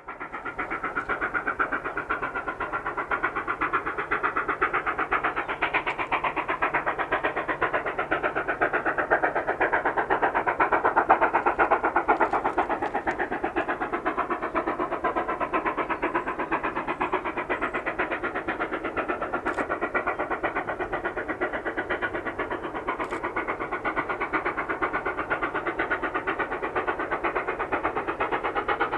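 Steam locomotive 3801, a 4-6-2 Pacific, working steam with an empty carriage train. Its exhaust beats come in a rapid, even chuff that swells to its loudest about eleven seconds in, then holds steady.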